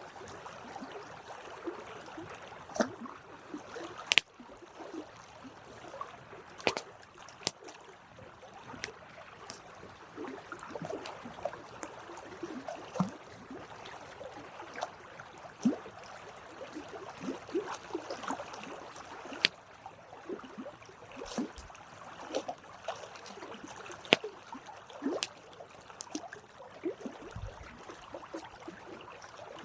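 Campfire burning: a steady low hiss with frequent irregular sharp crackles and pops from the burning wood.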